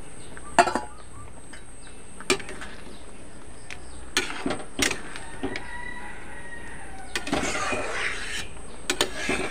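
A metal spatula knocking a few times against a steel kadhai as fried pakoras are stirred into simmering dal gravy. A rooster crows in the background in the second half.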